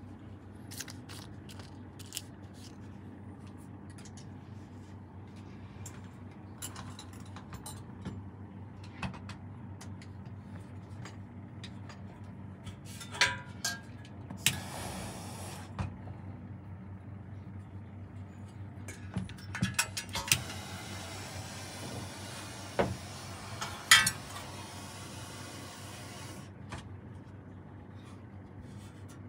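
Saxophone repair bench work: scattered metal clicks and taps of tools and parts over a steady low hum. Two stretches of hiss come in the middle and later on.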